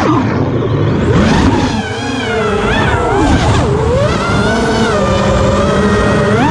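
Brushless motors and propellers of a 5-inch FPV quadcopter whining, their pitch rising and falling with the throttle, heard through the onboard action camera's microphone with wind rumble.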